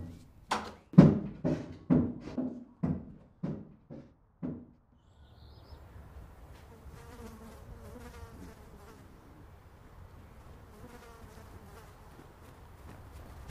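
Heavy footsteps, about two a second, growing fainter and stopping about five seconds in. After that comes a faint outdoor background with insects buzzing.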